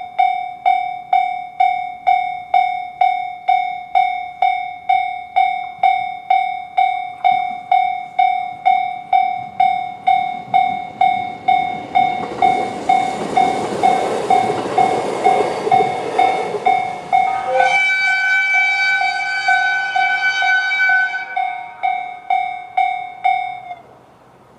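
Japanese level-crossing alarm ringing the JR standard electronic bell tone, about two strikes a second. An E129 series electric train passes over the crossing in the middle, its rumble swelling and fading over about five seconds. The bell rings on after the train has gone and stops shortly before the end.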